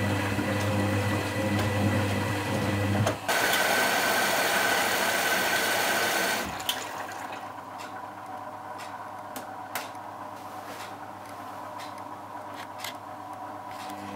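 Constructa Contura front-loading washing machine running its wash programme: a steady hum, then a louder rushing hiss of water from about three seconds in that cuts off after about three seconds, after which it runs quieter with scattered clicks.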